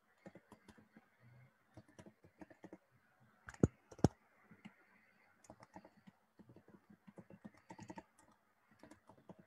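Computer keyboard typing: an irregular run of quick key clicks, with two louder clicks about half a second apart some three and a half seconds in.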